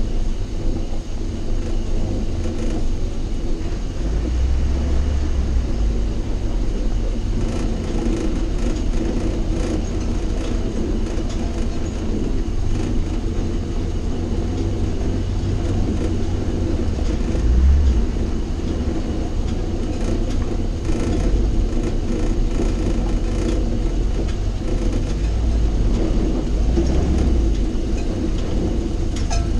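Willys CJ2A flatfender jeep's four-cylinder flathead engine running at crawling speed, heard close from the cowl: a steady low drone that swells a few times as it works over the rocks.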